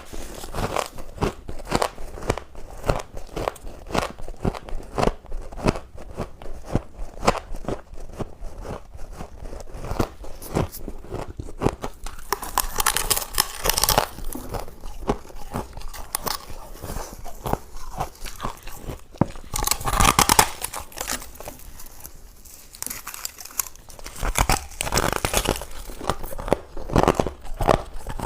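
Close-up crunching of freezer-frost ice being chewed: a quick run of small crunches several times a second, broken by louder single bites about halfway through and again near the end.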